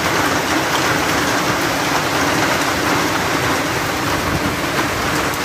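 Heavy hailstorm: hailstones and rain falling hard and steadily, a dense hiss with many small ticks of stones striking.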